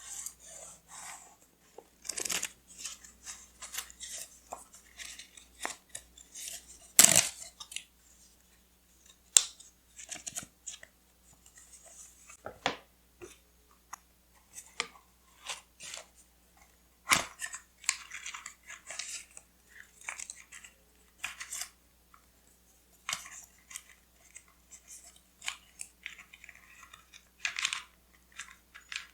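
Close-up paper-craft sounds of paper and washi tape being handled, cut and torn: short bursts of rustling and crinkling with sharp clicks and taps between them, the loudest about seven seconds in.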